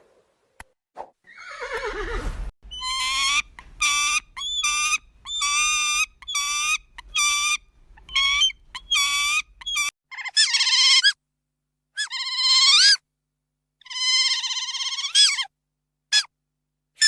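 An animal calling over and over in a high pitch. A falling call comes first, then a quick run of short calls, then three longer calls that bend in pitch at their ends.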